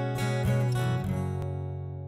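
Acoustic guitar intro music: a few strummed chords, then a last chord left ringing and slowly fading away.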